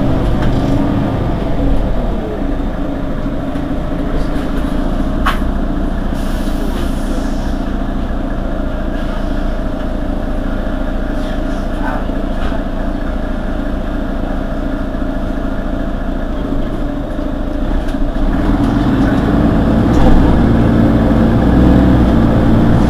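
Mercedes-Benz Citaro G articulated city bus's diesel engine idling steadily at a standstill. A short hiss of released air comes about six seconds in, and the engine gets louder about eighteen seconds in.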